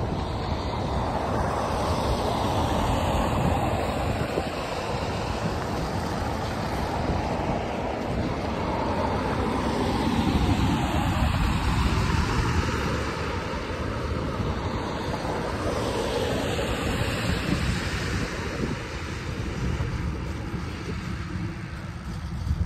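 Riese & Müller Load 75 cargo bike being ridden over a snowy path: steady wind buffeting on the microphone and tyre rolling noise, with traffic noise from the road alongside.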